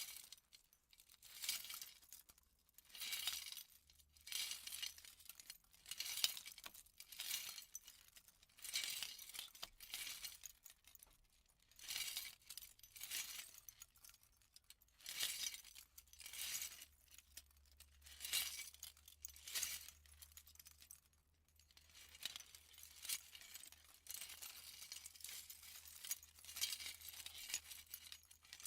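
Heavy jewelry rustling: a handful of jewelry jangled and clinking in repeated bursts about every second or so, becoming a more continuous jingle for the last several seconds.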